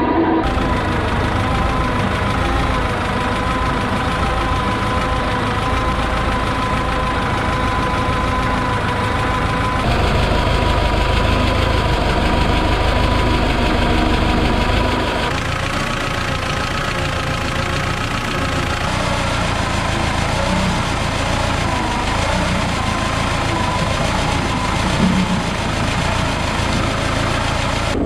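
Bulldozer's diesel engine running steadily with a steady high whine over it, in several clips joined together: the sound changes suddenly about a third and halfway through.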